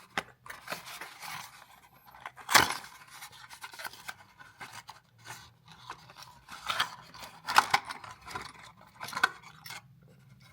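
A new 20-amp tamper-resistant outlet and its plastic packaging being handled: irregular scraping, rustling and sharp clicks. The loudest click comes about two and a half seconds in, and a few more follow later.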